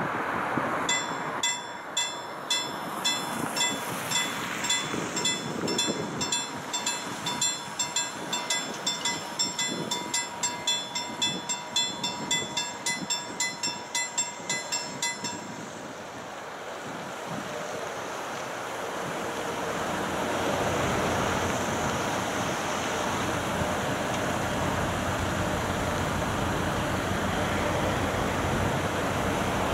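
Level-crossing warning bell ringing in rapid, regular strikes, about two and a half a second, stopping about halfway through as the barriers come to rest. About two-thirds of the way in, a low rumble rises and holds: the approaching freight train hauled by an Sr1 electric locomotive.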